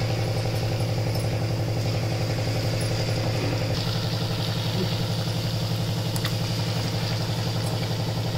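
Bonda batter frying in a kadai of hot oil with a steady sizzle. Under it is a louder, steady, low machine hum with a rapid even pulse, like a small engine idling.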